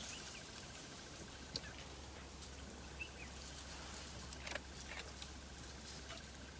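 Quiet bush ambience: a steady low hum, a faint rapid pulsing tone, short bird chirps, and a few sharp clicks or crackles, the loudest about a second and a half in and again about four and a half seconds in.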